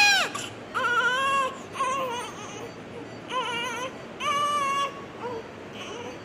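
Newborn baby crying just after delivery: a run of short wailing cries, about five in all, each under a second, with brief gaps between them, dying away near the end.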